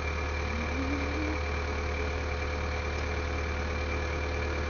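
Engine of the lift holding the burial vault lid on its cables, idling steadily with a low, even drone.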